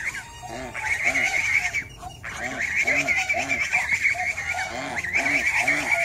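Farmyard poultry calling: a run of short, honking calls repeated about two or three times a second, with a brief pause about a third of the way in, over steady high-pitched chirping.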